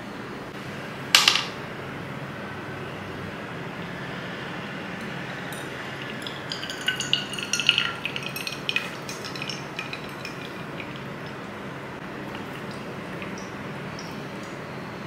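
Drip-bag coffee being made in a ribbed glass tumbler: one short sharp clink about a second in as the paper filter is hooked on the glass. A cluster of light glass clinks and tinkling follows from about six to nine seconds in, as hot water is poured from a kettle over the drip bag.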